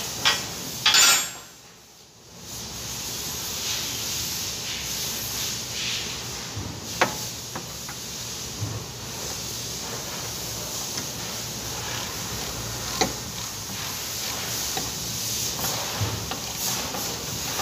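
Occasional sharp metallic clicks and knocks of hand tools and parts against a car's rear wheel hub and suspension, the loudest about a second in, over a steady hiss.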